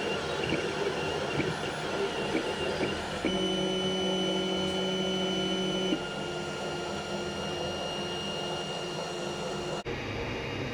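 3D printer running, with a steady motor whine that grows stronger for a few seconds in the middle. Near the end the sound cuts to a steady hiss.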